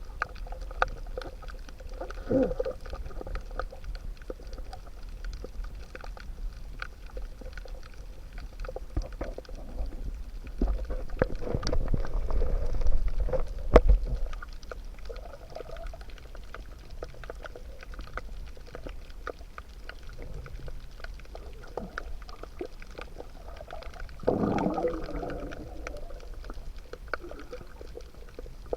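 Underwater water sound: a continuous crackle of faint clicks over a low rumble, broken by bursts of bubbling and gurgling about two seconds in, from about eleven to fourteen seconds, and again about twenty-four seconds in.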